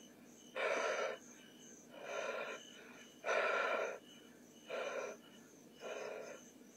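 A person breathing heavily close to the microphone: five audible breaths, about one every second and a half.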